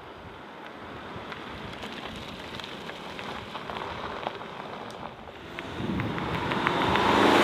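VW Tiguan R-Line SUV driving past on an asphalt road: a rushing tyre roar that swells as the car approaches, loudest near the end.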